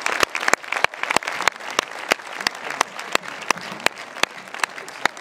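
An audience applauding in a theatre hall: many hands clapping irregularly, easing off somewhat toward the end.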